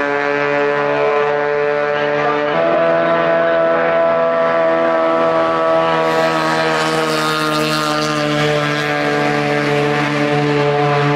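Two-stroke racing outboard engines running at a steady speed, a loud even drone; about two and a half seconds in the pitch steps abruptly to a different note.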